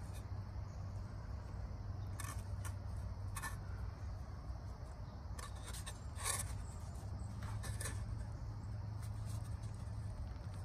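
Camp cookware and utensils scraping and clinking in short bursts, the loudest about six seconds in, over a steady low rumble.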